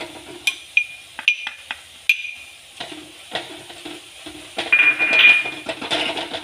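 A spoon stirring and scraping a frying spice masala in a pan, with a few sharp clinks against the pan in the first two seconds and a louder ringing scrape about five seconds in.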